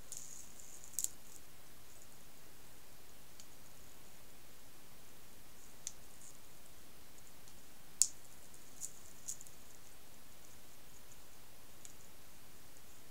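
A few scattered small clicks over a steady hiss, one near the start, the loudest about eight seconds in and a few more soon after.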